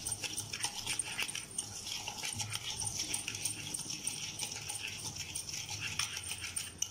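Wire whisk beating melted butter and sugar in a ceramic plate, the wires scraping and clicking against the plate in quick repeated strokes.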